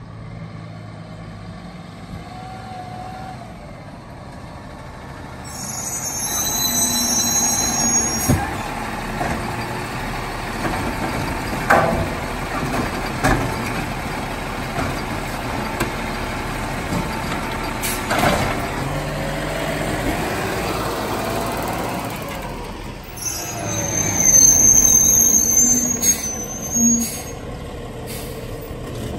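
Peterbilt automated side-loader garbage truck's diesel engine running as it pulls up and moves off, with hissing air brakes about six seconds in and again near the end. In between are several sharp clanks as the hydraulic arm lifts the trash cart and empties it into the hopper.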